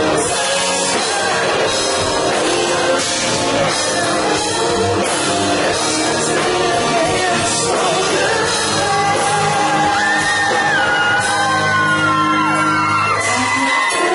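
Rock band playing live in a large hall, with electric guitar, drums and sung vocals mixed with shouting. About ten seconds in, a long wavering high note is held for a few seconds.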